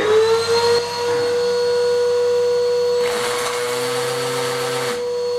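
Henry tub vacuum cleaner running steadily with a high hum, its whine settling as the motor reaches speed in the first half-second. From about three seconds in, a power drill with a masonry bit runs for about two seconds, boring through the stone wall.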